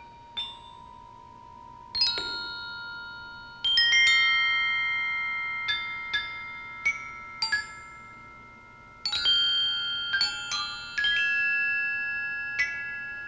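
Glockenspiel struck with mallets: sparse single notes and small clusters of quick strikes, each bell-like tone ringing on and overlapping the next as it slowly fades. The strongest groups of strikes come about two, four and nine seconds in.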